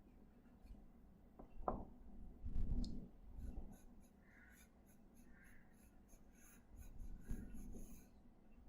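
Sketching strokes on paper, scratching and rubbing in two short spells with a quiet pause between.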